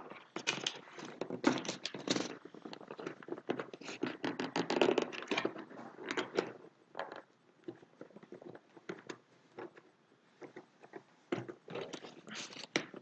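Hands working at a toy's packaging to get it open: irregular scraping, knocking and crackling handling noises, busiest early and again near the end with a quieter spell in between.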